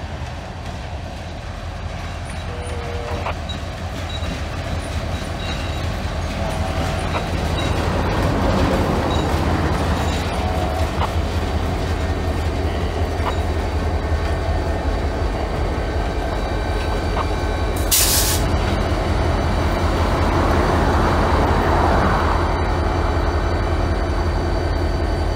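Diesel road-switcher locomotives rolling slowly past at close range, their engines running with a deep steady drone and steel wheels squealing lightly on the rails, growing louder as they draw alongside. A short burst of hiss about 18 seconds in.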